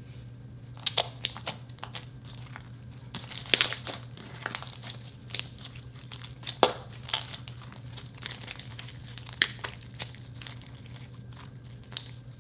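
Thick mint-green slime with chocolate-like chunks being kneaded, folded and squeezed by hand, giving irregular sticky pops and crackles.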